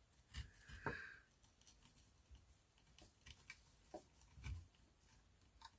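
Near silence with a few faint, scattered clicks and rustles: small handling noises of wires being worked through the holes of an old light switch.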